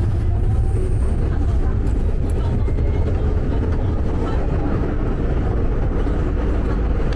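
Hong Kong MTR train running, a steady loud low rumble.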